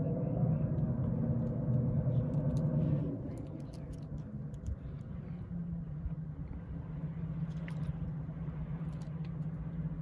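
Low steady rumble and hum of the steam lake freighter Alpena passing close. It is louder for the first three seconds, then settles lower.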